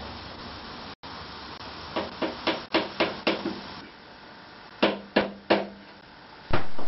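A hammer tapping on a James autocycle's bottom bracket lock ring to tighten it: a quick run of about six sharp metal taps, then three more a moment later with a short metallic ring.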